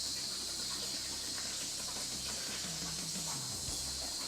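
Plasma cutting table cutting steel over its water bed: a steady high hiss from the plasma arc over a low machine hum, with a short falling low tone about three seconds in.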